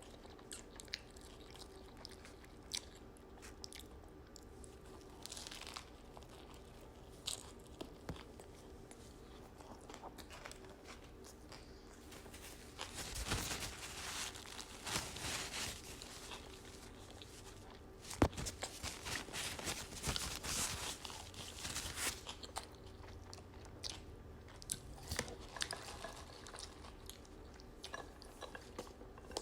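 Close-miked chewing and biting of a toasted Subway steak-and-cheese sub: soft mouth clicks, with two louder stretches of crunching about halfway through.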